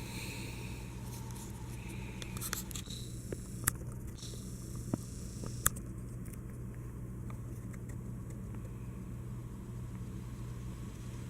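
Quiet room tone: a steady low hum, broken by a few sharp clicks about four, five and six seconds in.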